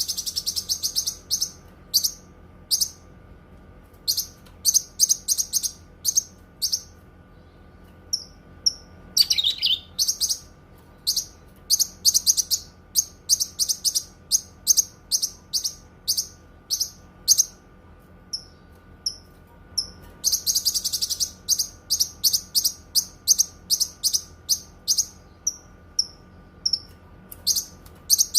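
Cucak kinoi songbird singing: strings of short, high chirps with rapid trills near the start and about two-thirds of the way through, and a single falling call about a third of the way in. A faint steady hum lies underneath.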